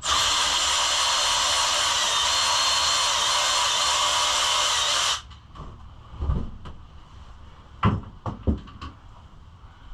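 A handheld power tool runs steadily at full speed for about five seconds and cuts off suddenly, working a bolt on the pit bike's bodywork. A few short knocks follow.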